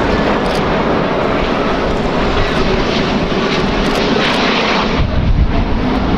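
Airbus A350-941's Rolls-Royce Trent XWB turbofan engines, a steady jet rush as the airliner flies its display pass, with a deeper rumble building about five seconds in.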